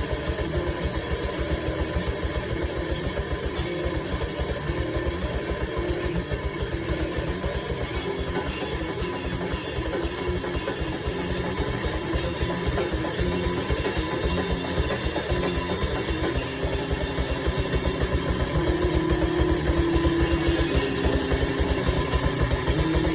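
Grindcore band playing: heavily distorted guitar over fast, dense drumming, loud and relentless throughout.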